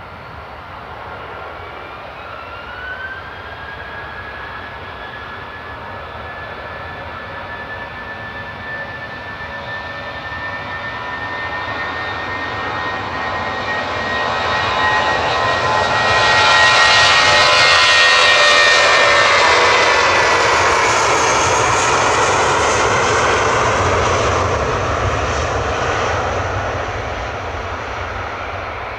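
Jet airliner's engines passing by: a whine and roar that build steadily to a peak about 17 seconds in, then fade, the engine tones sliding lower after the peak.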